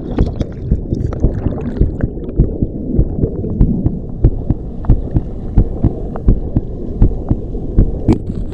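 Muffled underwater sound picked up by a submerged GoPro: turbulent water from the waterfall pool, dull and low with the high sounds cut off, and irregular knocks and thumps throughout.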